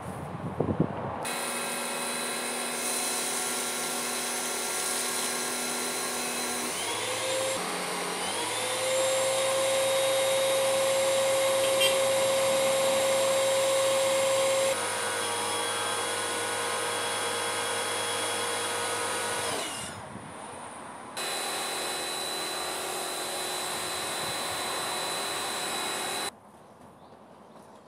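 Electric pressure washer motor and pump running as it feeds a snow foam lance. The motor starts about a second in, rises in pitch and gets louder several seconds later, drops back, cuts out briefly about twenty seconds in, then runs again until it stops near the end. The washer is playing up with the foam lance, which the owner suspects is air getting in through a leak in the hose.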